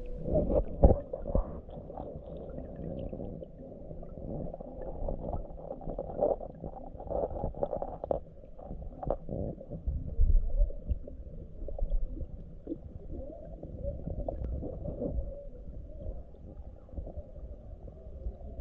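Muffled sloshing of river water with irregular knocks and bumps against the microphone. The sound is dull, with almost nothing high-pitched in it.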